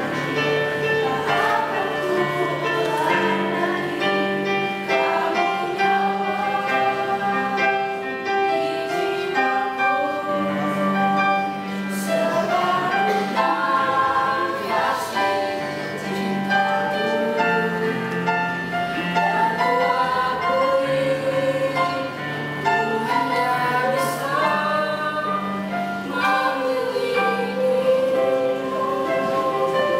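Music with a choir singing over sustained notes and a bass line, held at a steady level without a break.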